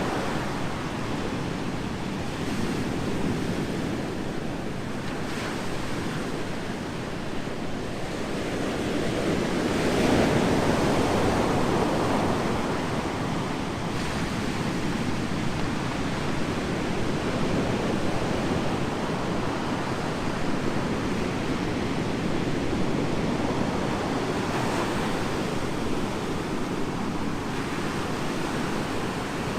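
Ocean waves breaking and washing up on a beach in a steady rush, with a bigger wave swelling loudest about ten seconds in.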